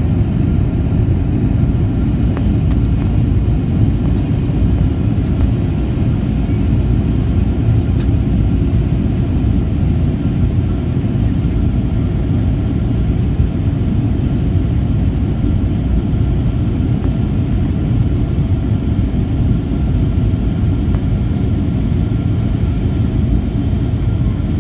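Cabin noise of a Boeing 737-800 heard from inside the passenger cabin: a steady, loud rumble of airflow and engines with a faint steady whine above it.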